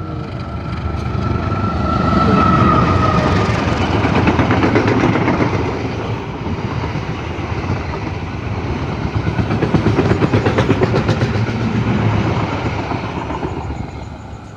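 Diesel passenger train passing at speed, its wheels clattering rapidly over the rail joints. The noise swells twice, about two seconds in and again near ten seconds.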